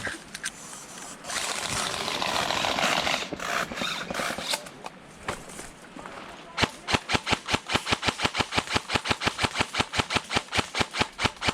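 A stretch of rustling noise, then, from a bit past halfway, an airsoft gun firing a long steady burst at close range: sharp, evenly spaced clacks at about eight a second that keep going.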